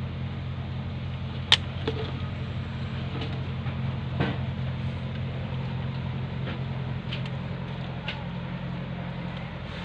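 Steady low motor hum, with a few sharp clicks or taps over it, the loudest about a second and a half in.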